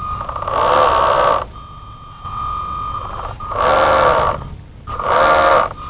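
Homemade servo winch in an RC model landing craft running in three short whirring bursts, each about a second long, winding its line drum. A steady high tone carries on between the bursts.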